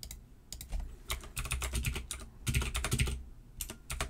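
Computer keyboard typing in quick runs of keystrokes, with short pauses about halfway and near the end.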